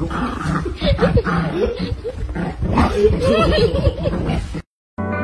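Small dog growling and whining in play while tugging at clothing with its teeth, a string of short wavering growls.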